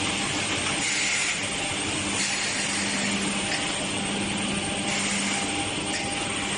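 Steady woodworking machinery running in a production plant: a continuous hiss with a low, even hum underneath.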